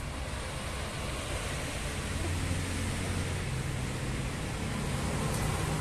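Road traffic: a steady hiss of passing vehicles with a low engine rumble that swells about two seconds in and builds again near the end.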